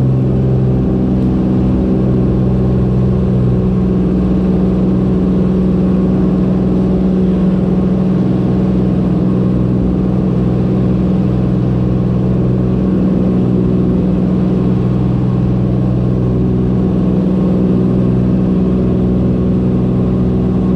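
Cessna 210K Centurion's six-cylinder engine and propeller droning steadily at climb power just after takeoff.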